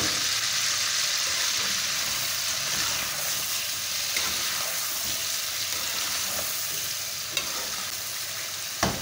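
Chicken leg pieces sizzling in hot oil in a karahi, stirred with a spatula as ginger-garlic paste is worked in: a steady frying hiss that eases slightly, with a few sharp knocks near the end.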